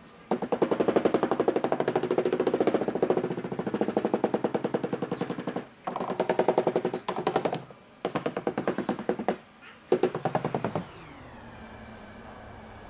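A handheld power tool run in four bursts, one long and three shorter, each with a fast, even rattle. After the last burst the motor's whine falls away as it winds down.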